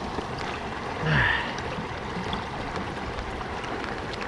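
River water flowing steadily. About a second in, a short vocal sound from a person falls in pitch and is briefly the loudest thing.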